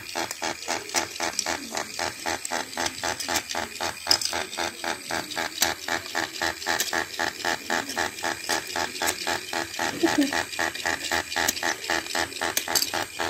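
Battery-powered rotating fishing-game toy running: its small motor and plastic gears make a fast, even clicking rattle, several clicks a second, as the pond turns and the fish mouths open and close.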